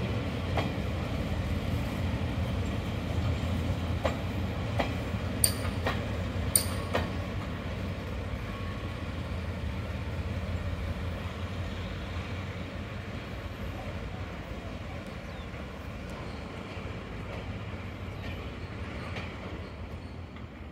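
Train of freight boxcars and passenger coaches rolling past and away: a steady low rumble from the wagons, with a few sharp clicks from the wheels in the first half, fading as the train recedes.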